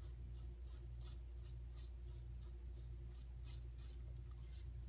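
Parker Variant adjustable safety razor with a Big Ben blade scraping through one day's stubble in short, quick strokes, about three or four a second, on the first pass with the grain. It cuts smoothly without hanging up. A steady low hum lies underneath.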